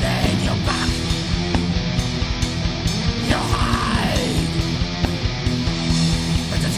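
Heavy metal song played by a full band: distorted guitars with fast, dense drumming.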